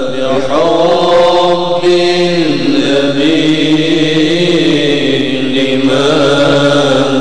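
A voice chanting a syair, a sung Islamic devotional poem, in long drawn-out notes that slowly bend in pitch, over a steady low tone held underneath.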